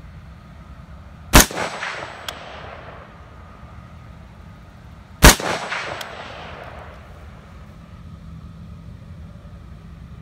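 Two AR-15 rifle shots, about four seconds apart, each with a long echo that dies away. A light tick follows each shot.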